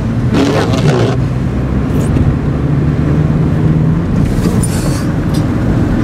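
Car driving on a snowy road, heard from inside the cabin: steady engine hum and tyre and wind noise. A brief swishing burst comes about half a second in and a fainter one near five seconds.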